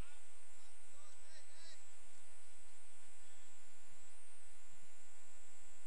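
Steady electrical hum and buzz.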